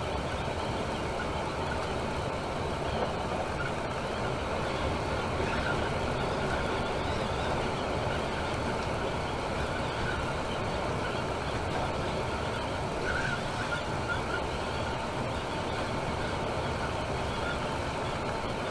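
Steady engine and road noise of a Temsa Maraton coach cruising on a motorway, heard from inside the passenger cabin, with a couple of brief faint squeaks.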